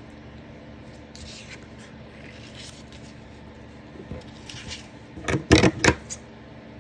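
Soft rustling of lace and a paper tag being handled on a tabletop, then a quick cluster of several loud knocks about five seconds in.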